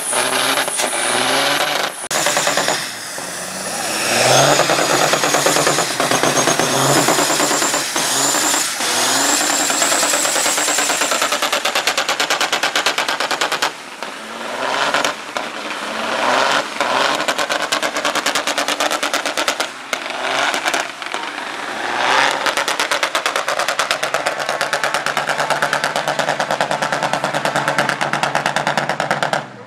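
Turbocharged diesel semi trucks doing burnouts, several in turn: engines held at high revs with a rapid, rattling exhaust beat through straight vertical stacks, mixed with the noise of spinning tyres.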